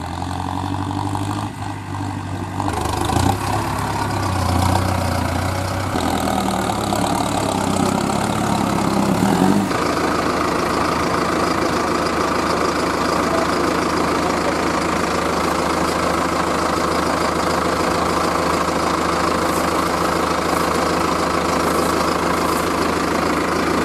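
Heavy diesel engine running, its low note rising and falling for the first ten seconds, then an abrupt change to a steady, busier engine sound.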